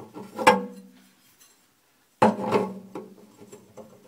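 Metal clinks and clatter as a garbage disposal's metal mounting ring is handled and fitted against the sink flange's mounting assembly. A sharp knock about half a second in rings briefly, and another burst of clatter starts suddenly about two seconds in.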